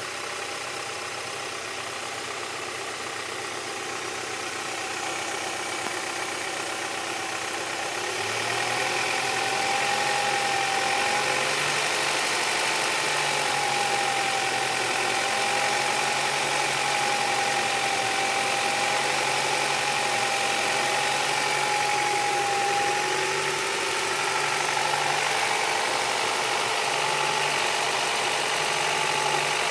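Honda Prelude H22A5 2.2-litre four-cylinder engine idling with a louder-than-normal tick or knock, which the owner suspects could be valve lash, a lifter, a wrist pin or piston slap. About eight seconds in the sound gets louder and a wavering whine comes in.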